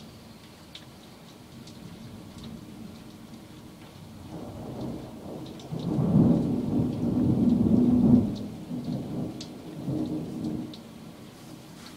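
Thunder rumbling in a rainstorm: a long rolling rumble builds about four seconds in, is loudest for about two seconds, then dies away in a few smaller swells. Rain falls throughout, with faint scattered drop clicks.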